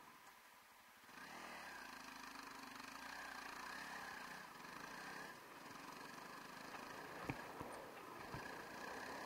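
Honda CRF300L Rally's single-cylinder engine comes in abruptly about a second in and then runs steadily, with a couple of sharp knocks near the end.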